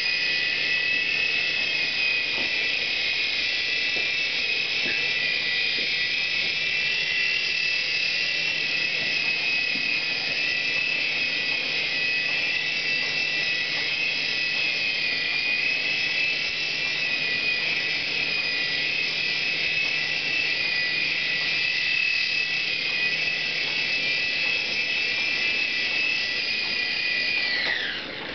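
Air Hogs Sharpshooter toy RC helicopter's small electric motors and rotor whining steadily at a high pitch, then winding down with a falling pitch near the end as the motors shut off.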